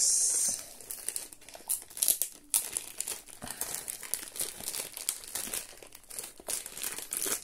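Plastic courier mailer bag crinkling and rustling as it is handled and pulled open by hand, with a loud rustle in the first half second.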